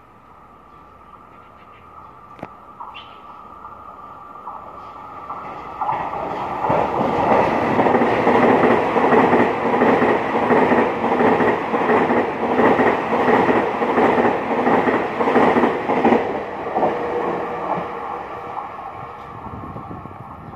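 Taiwan Railways EMU3000 electric express train passing through the station at speed without stopping. It grows louder as it approaches, then clatters rhythmically over the rail joints as the cars go by for about ten seconds, and fades as it moves away.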